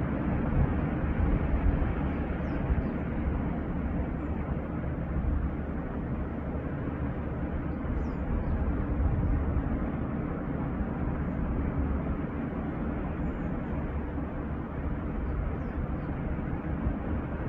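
Steady rushing of wind and surf at a sandy beach, heaviest in the low rumble, with a few faint high chirps.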